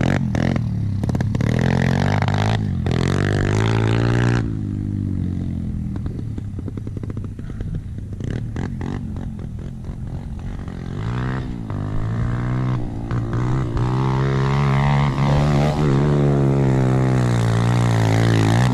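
Small dirt bike engine revving, its pitch rising and falling with the throttle. It is loud for the first few seconds, drops back in the middle, then swells again as the bike comes close near the end.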